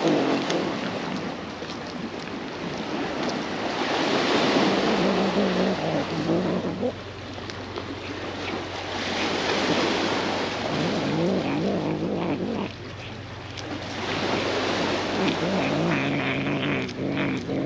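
Brown tabby cat growling low over a piece of fish it is eating, in several long growls of a few seconds each with a wavering pitch. It is a food-guarding growl, warning others off its catch.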